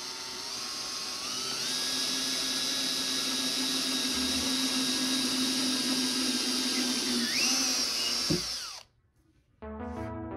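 Handheld power drill with a countersink bit boring a countersunk pilot hole into plywood: a steady motor whine that steps up in pitch twice in the first couple of seconds, rises sharply near the end, and then stops abruptly.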